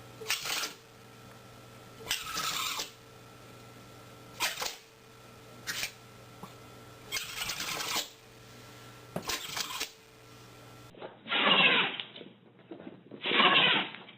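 A pet sneezing repeatedly: a run of six short sneezes, one every second or two. Then two louder, longer sneezes come near the end.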